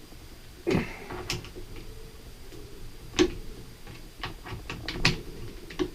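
Irregular clicks and knocks, a dozen or so spread unevenly, of a half-inch Milwaukee drill being handled and locked onto a sewing machine's hand-wheel shaft.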